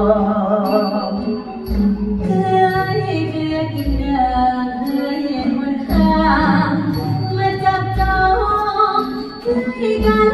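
A singer with a wavering vibrato voice sings a Thai song over a live orchestra of strings and brass, with low beats about every two seconds.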